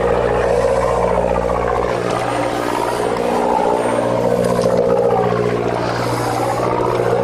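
Fishing boat's engine running with a steady, even drone.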